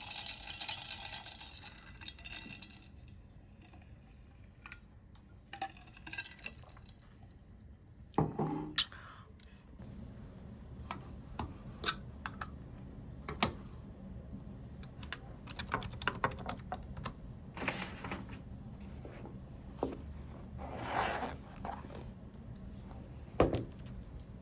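Scattered clicks and clinks of small hard objects being handled, some sharp knocks standing out, over a steady low hum.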